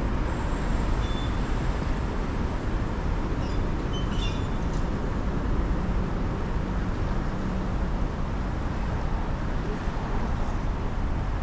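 Steady road and traffic noise of a car driving through wet city streets in the rain, with a few faint, brief high squeaks about four seconds in.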